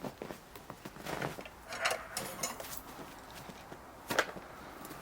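Scattered rustles and light knocks of handling and moving about, with a sharper knock about four seconds in.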